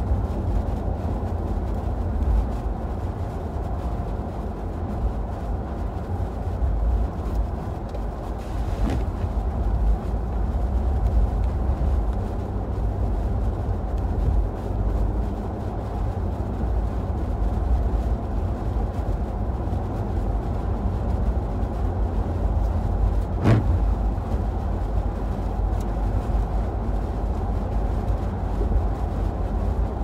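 Steady low rumble of a car's engine and tyres on a snow-covered highway, heard from inside the cabin, with a short click about two-thirds of the way through.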